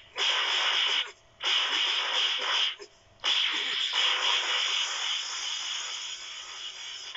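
Animated flight sound effects: rushing, hissing whooshes of air in three bursts, the first two cut off abruptly, the last longer and slowly easing off.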